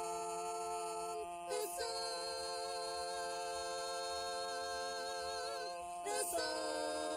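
Wordless a cappella choir of voices holding a chord in close harmony, moving to a new chord about a second and a half in and again near the end.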